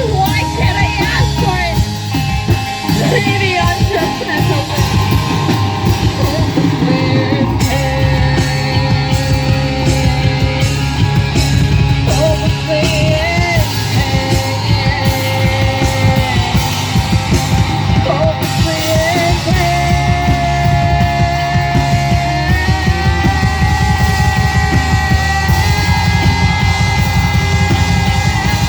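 Rock band playing live at full volume: drums and bass under a lead line of long held notes that bend in pitch.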